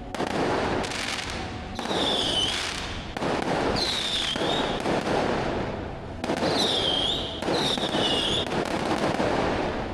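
Fireworks going off in a dense crackle that comes in waves, with four short whistling tones riding over it.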